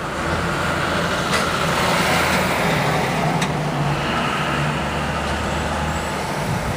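A vehicle engine running steadily at low revs in street traffic, a low hum that fades near the end, with two short clicks.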